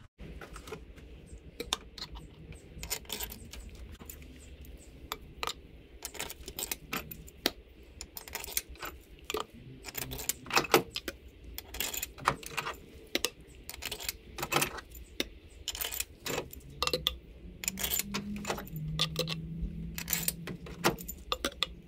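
New steel cylinder-head bolts for a Chevy 1.8 engine clinking as they are handled and dropped one by one into their holes in the head: many sharp, irregular metallic clicks.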